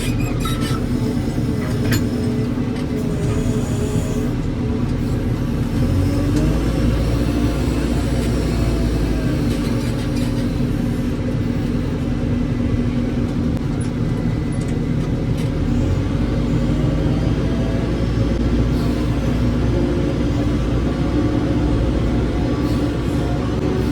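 Heavy diesel engine running continuously, its revs shifting up and down now and then.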